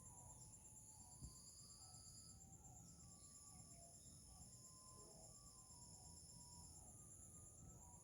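Faint, steady high-pitched trilling of crickets, with many short faint chirps scattered lower down.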